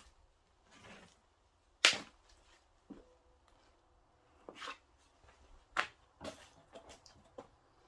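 Footsteps crunching and scuffing over debris on an abandoned office floor littered with broken drywall and drop-ceiling pieces: a few separate sharp crunches and crackles, the loudest about two seconds in.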